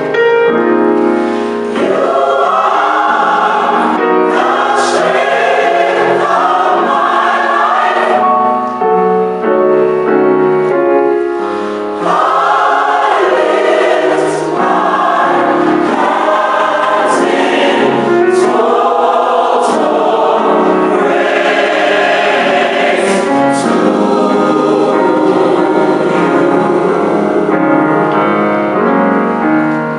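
Gospel choir singing, held notes rising and falling in pitch.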